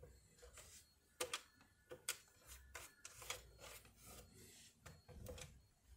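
Plastic handset and base of a Panasonic KX-T4311 cordless phone being handled: faint rubbing with a string of short, sharp plastic clicks and taps.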